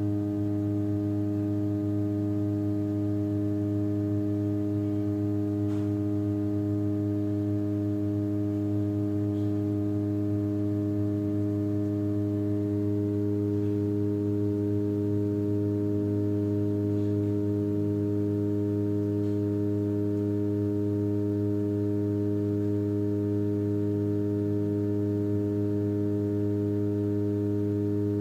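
Ship's steady low droning tone, one pitch with many overtones, held unchanged throughout.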